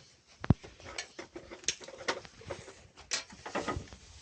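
Irregular short clicks and knocks with light rustling, the sharpest about half a second in.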